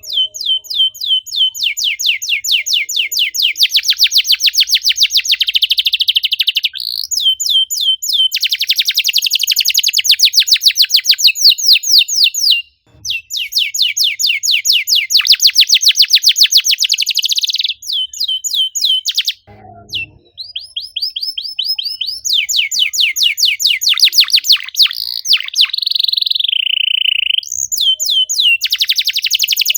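Domestic canary singing a fast, tightly packed song: long rolls of rapid repeated high chirps, broken by brief pauses, with a held, falling note near the end.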